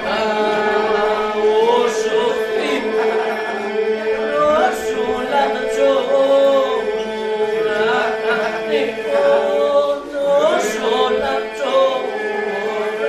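Group of young male voices singing an Albanian polyphonic folk song without instruments: a steady held drone underneath, with one or two voices carrying a bending melody above it.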